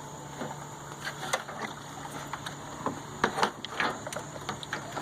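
Irregular light knocks and clicks of a radiator fan-and-shroud assembly being eased into place in a minivan's engine bay, most of them about three to four seconds in, over a steady low hum.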